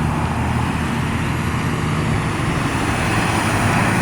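Steady road traffic noise: a motor vehicle running, with a low engine hum under a broad rushing sound.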